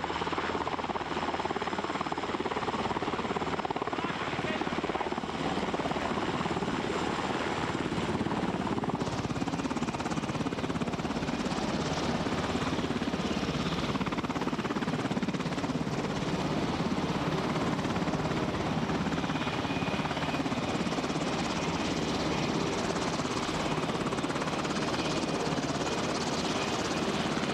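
Helicopter running steadily, its engine and rotor noise continuous and fairly loud.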